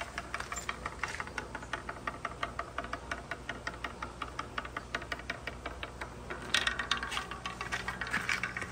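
A marble rolling down a long straight wooden wave track, clacking over each dip in a quick, even run of knocks. The knocking grows louder about two-thirds of the way through.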